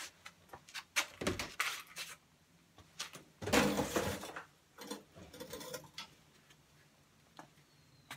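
Hand-working noises on a generator: scattered metallic clicks and knocks, with a longer scraping clatter about halfway through.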